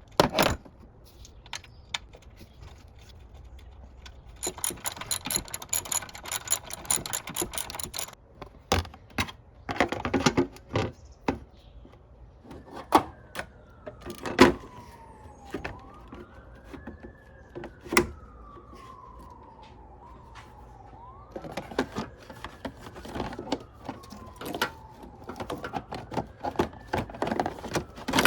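A ratchet wrench clicks rapidly for a few seconds, among sharp metal clanks and knocks of tools. From about halfway through, an emergency siren wails more quietly behind them, its pitch slowly falling and rising in long cycles.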